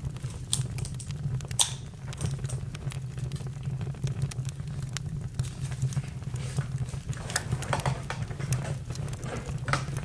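Campfire crackling: irregular pops and snaps over a steady low rumble of burning wood.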